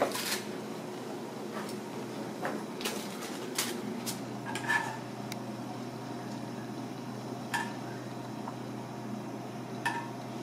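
Scattered clicks and clinks of a spoon and ceramic cup and plate being handled, some with a short ring, over a steady low hum.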